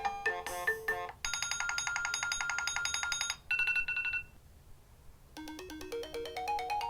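New iOS 7 ringtones previewed one after another, each cut short when the next is chosen. A melodic tune stops about a second in, a fast repeating electronic pattern follows, then a brief bright tone fades out. After a short pause, a new tune of quick rising notes begins.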